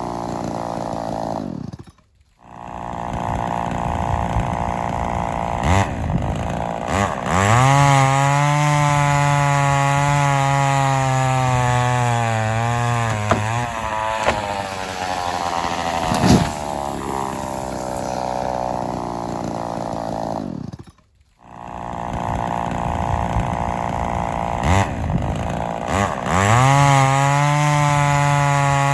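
Homelite XL-400 two-stroke chainsaw running at a low, steady speed, then revved up about a third of the way in and held at full throttle in the cut, its pitch sagging slightly under load before it drops back. It revs up the same way again near the end, and the sound cuts out briefly twice. The owner says this saw was not running perfectly.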